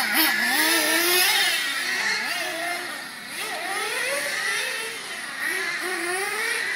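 Losi 8IGHT-T 2.0 nitro truggy's small two-stroke glow engine revving up and down under throttle, its pitch constantly rising and falling. The tune is judged too rich on the bottom and too lean on top.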